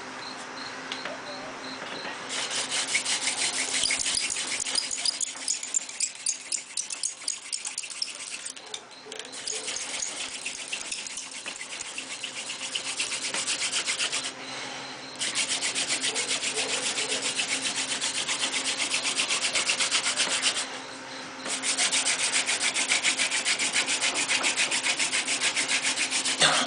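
Hand-drill friction fire: a swamp rose mallow (Hibiscus moscheutos) spindle spun between the palms on a pine hearth board, rubbing with a fast, even rasp. It starts about two seconds in and stops briefly twice, about halfway and about three-quarters of the way through.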